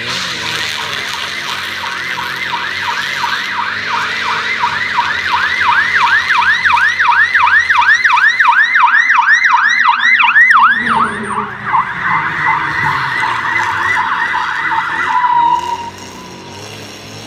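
Fire truck siren on an emergency run, in a fast yelp of about three rising-and-falling sweeps a second, growing louder as the MAN TGL 12.240 aerial ladder truck approaches. About eleven seconds in, the siren drops in pitch as the truck passes and its engine can be heard. The siren winds down and stops near the end.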